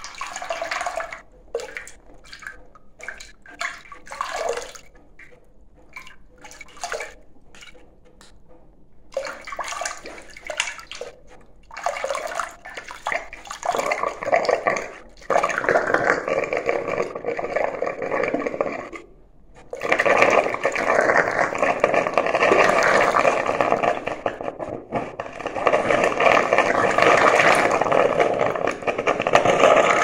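Water heated in the stove's coiled stainless boiler tubing percolating up and spurting from the return pipe into a stainless steel pot of water, splashing. It comes in short, irregular spurts at first, then splashes almost without a break from about halfway, apart from one brief pause.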